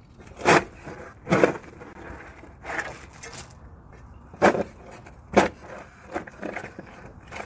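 Steel spade blade stabbed down into packed gravel and tree roots, a crunching scrape of stones with each stroke: about five hard, irregularly spaced strikes, with smaller scrapes near the end.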